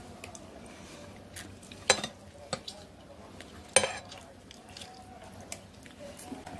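Cutlery and dishes clinking during a meal: a few sharp knocks of a spoon or utensil on crockery, the two loudest about two and four seconds in.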